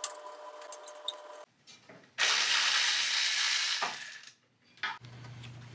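Faint clicks of hand tools working on a lawn mower engine, then a loud hissing burst from a power tool lasting about a second and a half.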